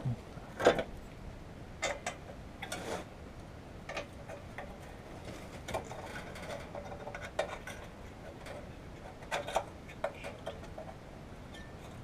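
Irregular metallic clicks and knocks of hand tools being worked on an engine, a dozen or so spread out with gaps between them.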